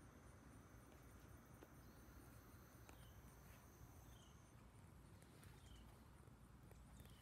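Near silence: faint garden ambience, with a thin high steady tone that stops about halfway through and four short, faint falling chirps.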